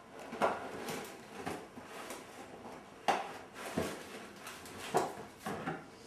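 Alexandrine parakeet eating breakfast cereal: irregular sharp clicks and knocks, about eight over six seconds, from its beak working the cereal.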